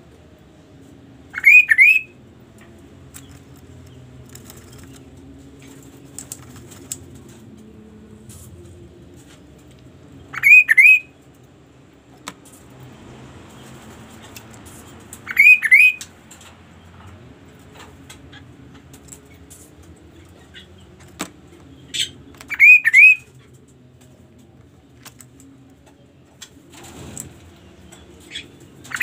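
Caged kaso-kaso songbird calling four times, several seconds apart; each call is a loud, quick pair or triple of upward-sweeping whistles.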